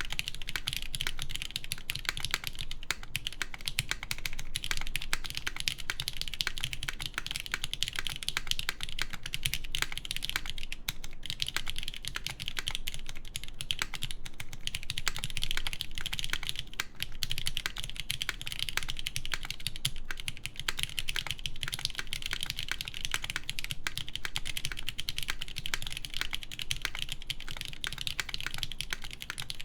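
Continuous fast typing on a mechanical keyboard with lubed Cherry MX Black linear switches in an aluminum plate, a dense run of key clacks with brief pauses now and then.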